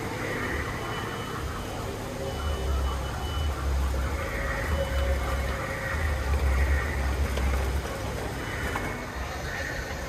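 Busy outdoor ambience of people chattering faintly, with a low rumble that swells from about two seconds in and fades near eight seconds.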